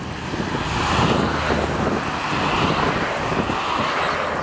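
Airbus A321's twin jet engines running as the airliner rolls along the runway: a steady broad rush of jet noise, mixed with wind buffeting the microphone.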